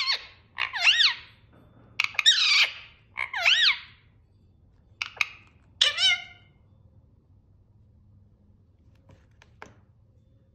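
Parrot squawking: a run of about five harsh calls with wavering pitch, then the calling stops about six seconds in. A faint click follows near the end.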